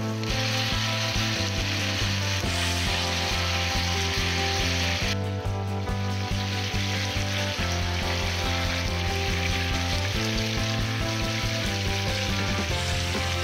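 Chicken drumsticks sizzling in a frying pan as the beer sauce boils down to a thick bubbling glaze, with a brief lull about five seconds in. Background music plays over it.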